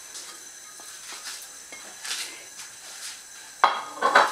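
Silicone spatula scraping grated malanga off a plate into a ceramic bowl in a few soft strokes, then sharp knocks of dishware near the end.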